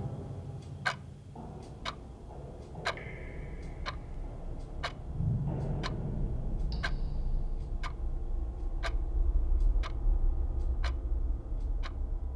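Clock ticking, about once a second, over a low steady drone.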